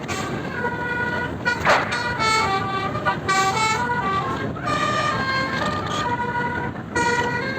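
Bus telolet (basuri) musical horn playing a tune, several horn tones sounding together and stepping from note to note every fraction of a second, over a steady rumble of road and engine noise. A short sharp burst of noise cuts in about a second and a half in.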